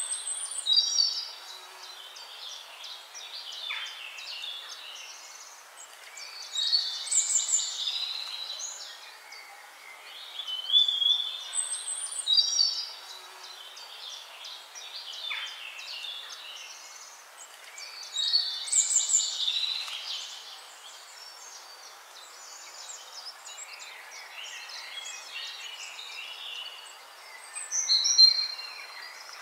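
Birds singing: a bright chirping phrase comes again about every six to eight seconds, over a faint steady hiss.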